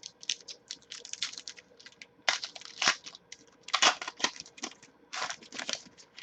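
Trading card pack wrapper being torn open and crinkled while the cards are handled, heard as a run of irregular crackles and rustles.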